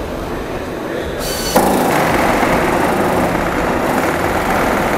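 A loud, steady mechanical noise cuts in abruptly with a click about a second and a half in and runs on without change; before it there is a quieter steady background noise.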